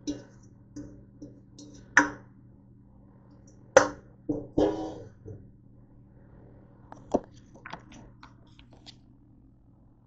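Metal tongs knocking and scraping against a stainless steel mixing bowl and a cooking pot as shredded cabbage is moved across: a string of sharp clanks with a little ring. The loudest cluster comes about four seconds in, followed by lighter clicks, all over a steady low hum.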